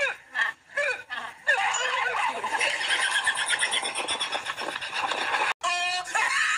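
People's voices in short bursts, then a dense, busy run of sound that cuts off abruptly about five and a half seconds in, followed by a short pitched sound.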